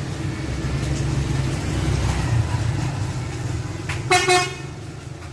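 A tour bus engine running with a steady low rumble. About four seconds in comes one short, loud blast of the bus's telolet (basuri) musical air horn.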